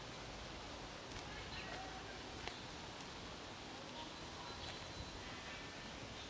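Quiet street ambience: a steady low rumble with faint, short high chirps now and then and a couple of sharp clicks about halfway through.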